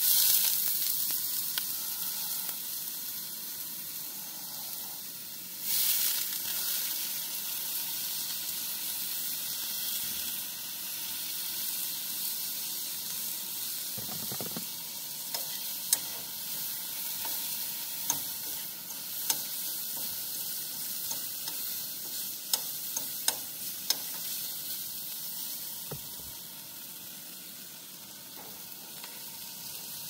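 Chicken thighs and smoked sausage sizzling in a frying pan on a camp stove. The sizzle flares sharply louder at the start, as liquid is poured from a bottle, and again about six seconds in. A few sharp clicks of a utensil against the pan come from about sixteen seconds on.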